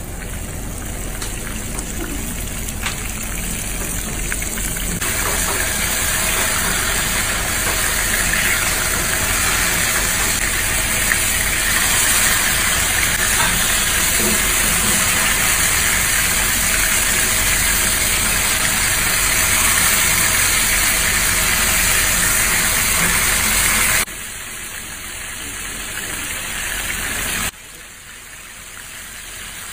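Red mullet pan-frying in hot oil: a steady sizzle that slowly grows louder. Near the end it twice drops suddenly to a quieter sizzle, then builds again.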